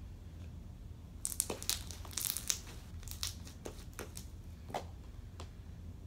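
Crinkling, crackling handling noise: a quick run of sharp crackles about a second in, then scattered single clicks.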